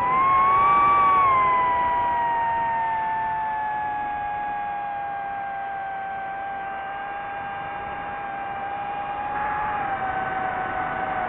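FPV quadcopter's motors and propellers whining, the pitch rising briefly about a second in, then sinking slowly and steadily.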